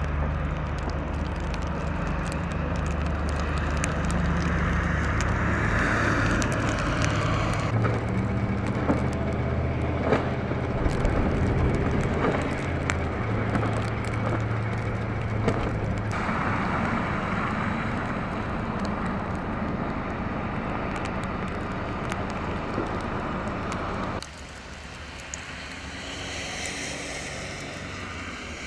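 A steady low engine hum, like a vehicle running, with scattered sharp ticks. Its pitch shifts about 8 and 16 seconds in, and about 24 seconds in it drops out, leaving a quieter steady hiss.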